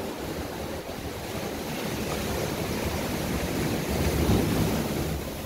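Ocean surf washing ashore, a steady rush that swells to its loudest about four seconds in and then eases off.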